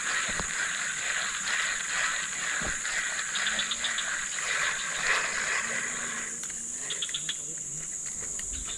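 Insects buzzing in a steady high-pitched drone, with two short runs of fast ticking, about a third of the way in and near the end.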